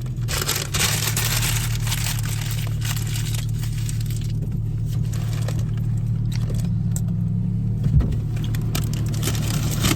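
Car cabin noise while driving: a steady low engine and road hum, with a single knock about eight seconds in.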